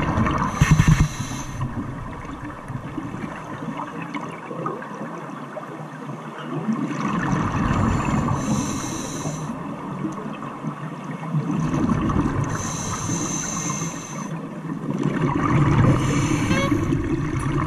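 Underwater sound of a scuba diver breathing through a regulator: bubbling, hissing breaths that swell in surges a few seconds apart, over the dull wash of water against the mic.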